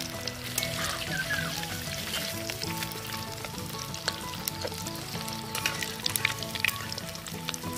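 Batter-coated topse fish (paradise threadfin) deep-frying in hot oil in an iron karahi: a dense sizzle full of sharp crackles and pops. Soft background music plays underneath.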